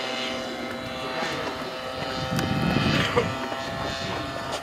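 CAP 580 aerobatic plane's engine and propeller droning steadily in flight, a high, even tone.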